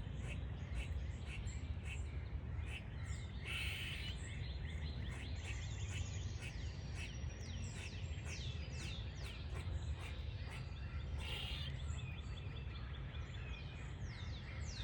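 Squirrel squeaking: runs of short, high squeaks, each falling in pitch, repeated many times over a steady low rumble.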